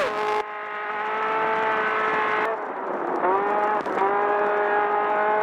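Off-road race buggy's engine running hard at high revs, its pitch dropping briefly about three seconds in and then climbing back up.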